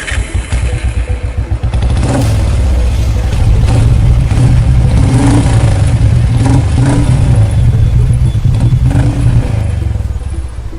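Royal Enfield Bullet's single-cylinder motorcycle engine running with a rapid, even beat. It grows louder about two seconds in and dies down near the end.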